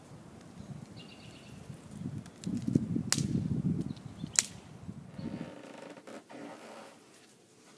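Bare feet crunching and rustling on a pile of wood-chip mulch while a dead stick is picked up out of it, with two sharp cracks about a second apart. Near the end it gives way to quieter room tone.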